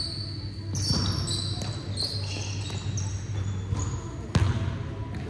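Basketball bouncing on a hardwood gym floor, with sneakers squeaking on the wood through the first few seconds and the loudest bounce about four and a half seconds in. A steady low hum runs underneath.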